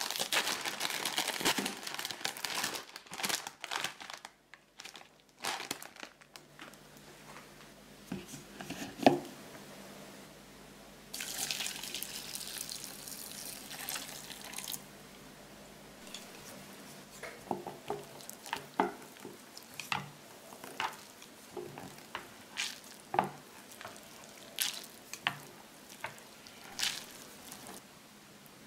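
Plastic packaging crinkling as snack and noodle packets are handled, then hot water poured onto Nissin Chicken Ramen instant noodles in a ceramic bowl, a steady hiss for a few seconds about eleven seconds in. A sharp knock comes before the pour, and scattered light taps and knocks follow it.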